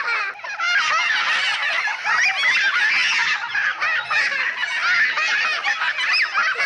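A flock of birds calling all at once, a dense, unbroken chorus of many overlapping short calls.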